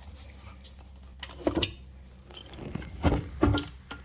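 A thin screwdriver tapped and levered into the sealed seam between the two halves of an Audi 4.2 V8 intake manifold, prying them apart: scattered sharp knocks and clinks, loudest about a second and a half in and again around three seconds in.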